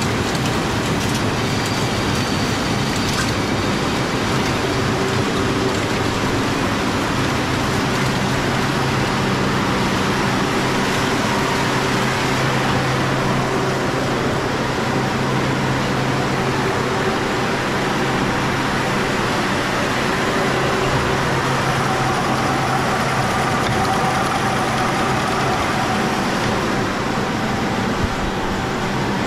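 Steady din of automatic silk-reeling machines running, an even noise with a low hum underneath that grows a little stronger a few seconds in.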